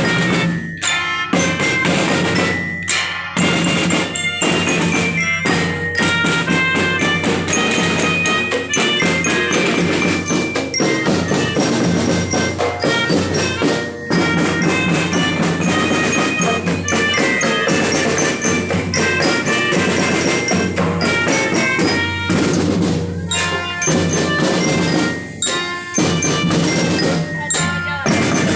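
School drum band playing: marching drums beat steadily under a melody of short, bright bell notes, the bell lyres (glockenspiels) typical of such bands.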